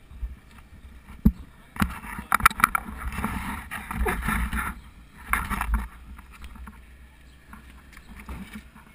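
Wind and road noise on a bicycle-mounted camera while riding, with a cluster of knocks and rattles about two seconds in and another short burst a little after the middle.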